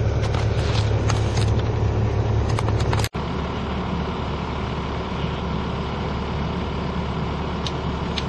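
An engine idling steadily, with a pick and shovel chopping and scraping at hard soil over the top. About three seconds in, the sound drops abruptly to a quieter, steady engine drone with a few light clicks near the end.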